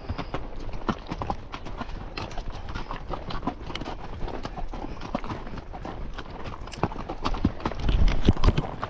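Horse's hooves clip-clopping at a walk over a rocky desert trail, heard from the saddle as a steady run of sharp knocks. A louder low rumble comes in near the end.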